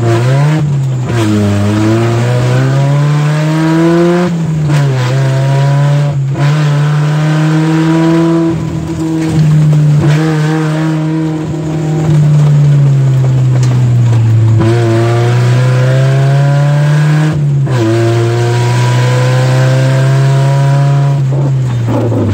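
Engine of an off-road 4x4 heard from inside the cabin, driven hard on a dirt track: the note climbs in pitch as it accelerates and drops back at each gear change, several times over.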